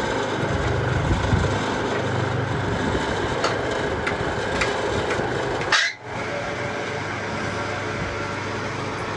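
Steady road and engine noise with a few light taps, like tools striking metal. About six seconds in there is a short sharp noise that cuts off abruptly, and the background then sits a little lower.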